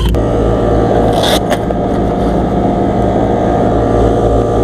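Packaged air-conditioning unit running: a steady mechanical hum, with a brief scrape about a second in.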